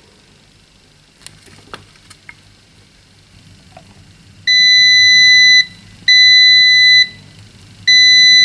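A few light clicks, then a multimeter's continuity beeper giving three long, steady, high-pitched beeps of about a second each as the probes are held on a capacitor. The beeping shows a short across the capacitor, which the repairer takes as the fault.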